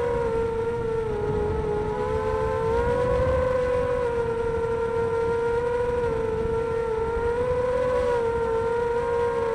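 Xbird 250 racing quadcopter's brushless motors and 5x3 props whining in flight. The pitch is steady and rises and falls gently with the throttle.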